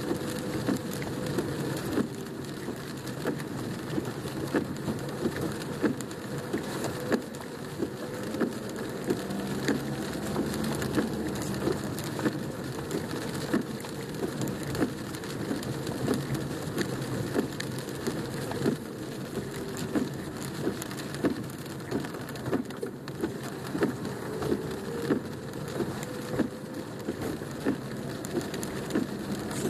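Heavy rain drumming on a car's roof and windscreen, heard from inside the moving car: a dense patter of sharp drops over the steady low noise of the car driving on the wet road.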